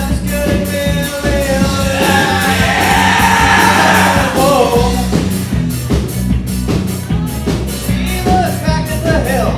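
Live rock band with drums, bass and guitars, a singer's voice held and wavering over it for a few seconds in the middle.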